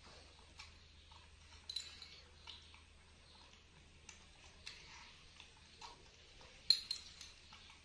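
A small spoon clinking and tapping against a small cup while liquid medicine is spooned out for a monkey: a few light, sharp clicks, the loudest about two seconds in and again near the end.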